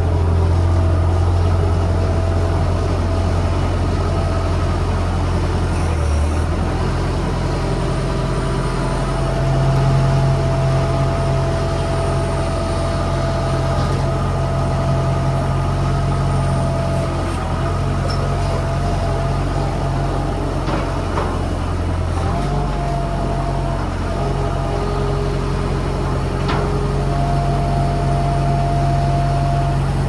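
Bobcat skid-steer loader's engine running steadily while it carries a log in on its forks and sets it down, with a thin steady whine above the engine note; the engine note shifts a few times as the machine works.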